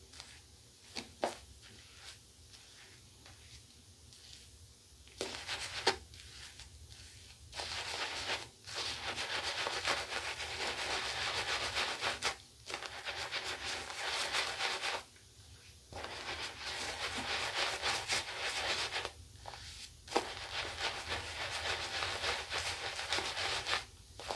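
Synthetic shaving brush scrubbing lather into two days' stubble: a wet, bristly scratching that comes in stretches of a few seconds with brief pauses. The first several seconds hold only a few faint clicks before the brushing starts.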